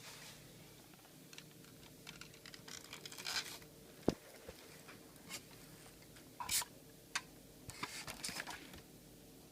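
Scattered light clicks and short scratchy rustles of small hard plastic parts being handled, with one sharper click about four seconds in, over a faint steady hum.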